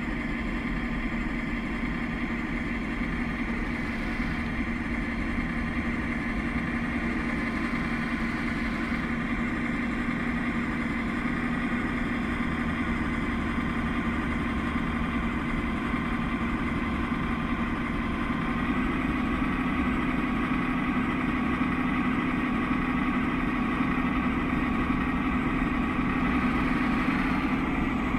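Large self-built 1:8 scale RC model of a John Deere 9560R tractor pushing sand with its hydraulic front blade: its motor and hydraulic pump run with a steady whine. About two-thirds of the way through it gets a little louder and slightly higher.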